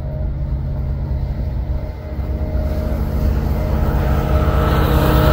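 Canadian National SD75i and ES44AC diesel-electric freight locomotives approaching, their engines running with a low steady drone that grows louder, and a higher whine coming in over the second half.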